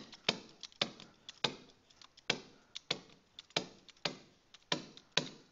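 Stylus tapping on a writing surface as a word is handwritten: sharp, irregular taps, about three or four a second.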